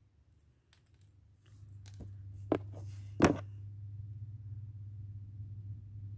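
Hands handling small craft pieces: a few light clicks, then two sharp taps about two and a half and three and a quarter seconds in, the second the loudest. Under them a low steady hum starts about a second and a half in and keeps going.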